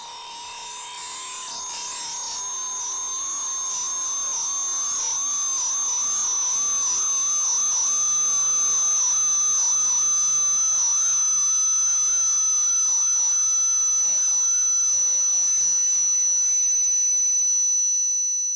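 Synthetic tinnitus-masking tones: a strong, very high whistle-like tone, a weaker middle tone and a faint even higher one, all wavering slightly in pitch over a light hiss. The very high tone settles in about two seconds in, and the whole sound fades out near the end.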